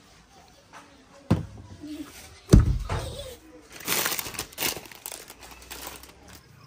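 A sharp knock, then a louder dull thump about two and a half seconds in, followed by plastic snack packets crinkling as they are handled.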